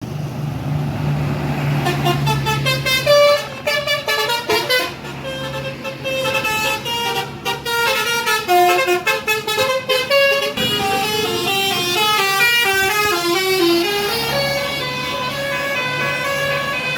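Telolet bus horns, the multi-tone musical horns of Indonesian tour buses, playing quick melodic runs of notes that step up and down, over the low steady hum of a bus engine.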